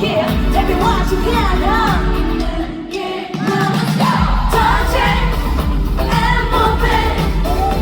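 A woman singing a pop song over a backing track through a venue's sound system during a sound check. The bass and beat drop out for about a second a little under halfway through, then come back.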